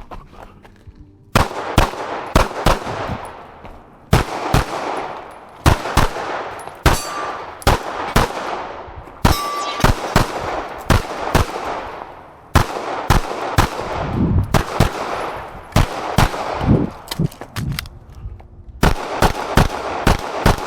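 9mm Glock 17.5 pistol firing a USPSA stage, with shots starting about a second and a half in. They come in quick pairs and strings with short pauses between strings.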